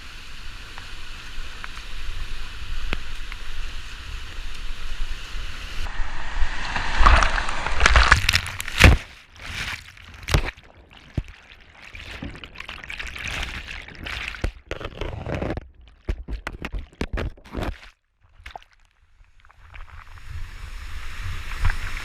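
Whitewater rushing, then loud splashing and knocks as a kayak goes over a waterfall and crashes into the pool below. The sound drops away briefly near the end, then the rushing water returns.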